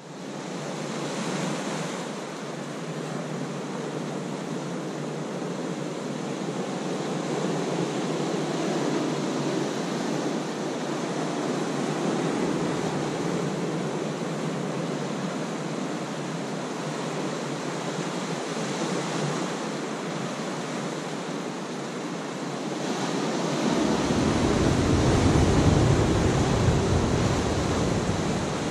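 Ocean surf washing in over a rocky shore: a steady rushing that swells and ebbs. About 24 seconds in it swells louder and deeper for a few seconds.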